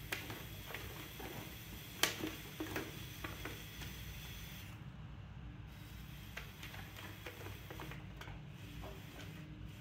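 Leather-hard terracotta being trimmed on a spinning potter's wheel: a trimming tool scraping the clay and peeling it off in ribbons, with scattered light clicks and ticks, a sharper one about two seconds in, over the steady low hum of the wheel.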